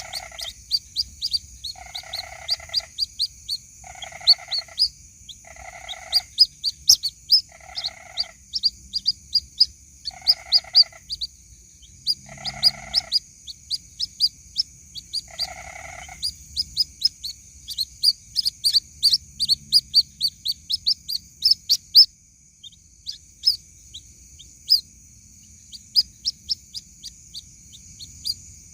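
White-breasted waterhen (ruak-ruak) chicks peeping: a rapid, continuous string of short high chirps, the begging call of chicks calling for their mother. For about the first half, a lower, drawn-out call repeats about every two seconds. A steady high hiss runs underneath.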